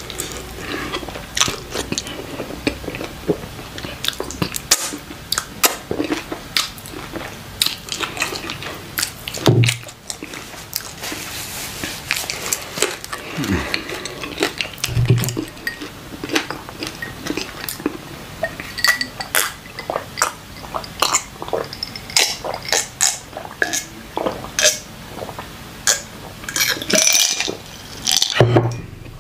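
A person eating fufu with chicken pepper soup by hand, giving close-up chewing with many short clicks and smacks of the mouth throughout.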